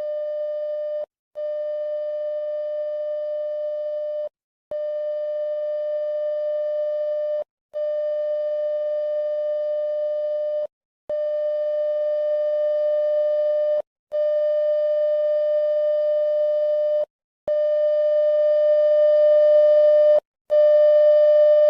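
Electronic emergency-alert (EAS) alarm tone: one steady pitch sounding in long beeps of about three seconds each, with short breaks between them, getting louder toward the end.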